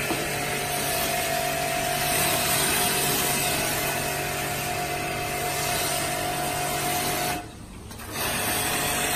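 Foam cannon spraying foam onto a car: a steady hiss with a constant motor hum running along with it. Both cut out for under a second about seven and a half seconds in, then start again.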